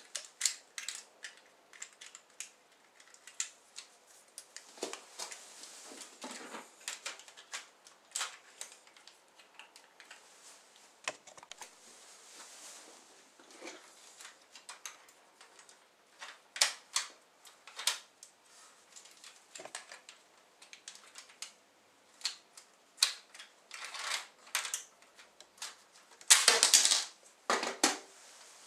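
Irregular plastic clicks and rattles of LEGO bricks as a LEGO bolt-action rifle's magazine and mechanism are handled, with a louder run of clatter near the end.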